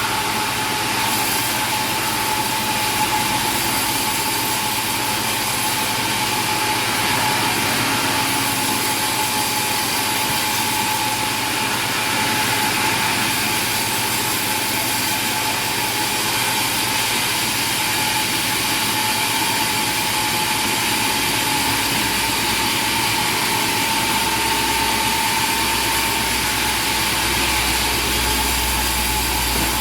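Machinery running steadily, with a constant whine over an even noise.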